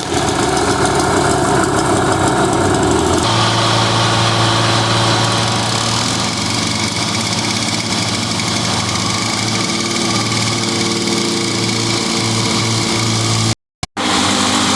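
Several walk-behind lawn mower engines running together at a steady speed: two-stroke Toro and Lawn-Boy engines alongside a four-stroke Briggs & Stratton. The mix changes abruptly about three seconds in, and the sound cuts out briefly near the end.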